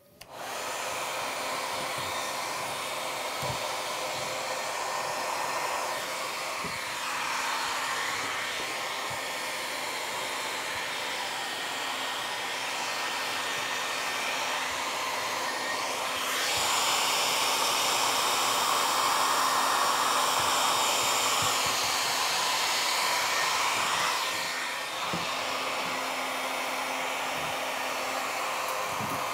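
Handheld hair dryer running steadily, a continuous rush of blown air with a faint motor hum underneath, growing louder for several seconds in the middle before settling back.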